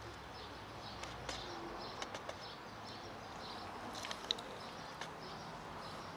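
Cats eating from a plastic tub, chewing with a few sharp clicks, over background birds chirping repeatedly.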